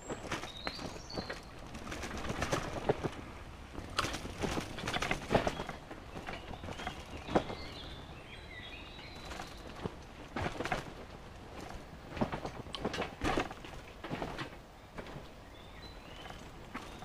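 Bicycle riding along a path, rattling with irregular knocks and clicks over bumps, with a low rolling noise beneath. Birds chirp briefly near the start, in the middle and near the end.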